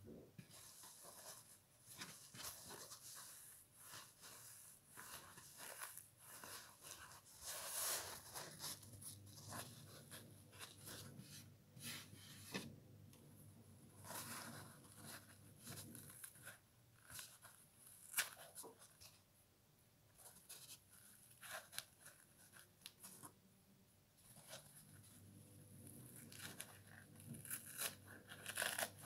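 Fingers plucking the foam off a kitchen sponge's green scouring pad: quiet, irregular tearing and crunching of foam, in short uneven rips.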